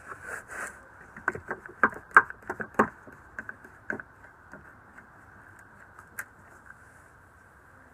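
Irwin Quick-Grip one-handed bar clamp being tightened by pumping its trigger handle: a quick run of sharp clicks, about a dozen over three seconds, then a single click a couple of seconds later.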